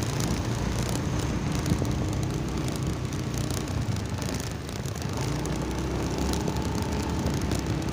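Steady road traffic noise of vehicle engines running, with an engine hum that becomes a steady tone from about five seconds in.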